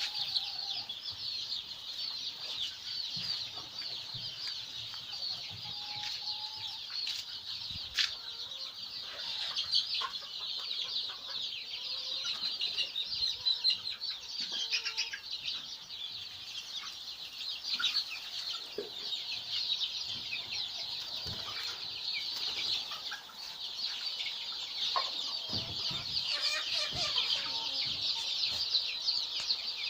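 A large brood of young chicks peeping continuously, a dense chorus of many overlapping high cheeps, with a few scattered clicks and knocks.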